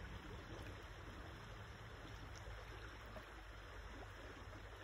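Faint, steady flow of river water.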